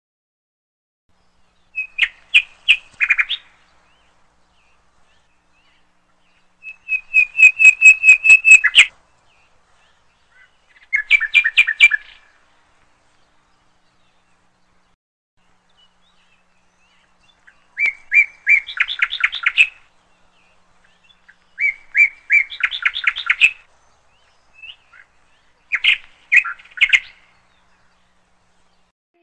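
A songbird singing: about six short phrases of rapid chirps and trills, each a second or two long with pauses of several seconds between them. The loudest phrase comes about seven to nine seconds in.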